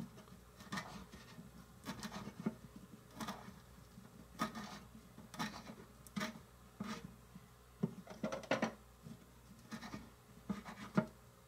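Knife chopping fresh parsley on a small wooden cutting board: irregular knocks of the blade on the wood, roughly one or two a second, with a quick cluster of chops a little past the middle.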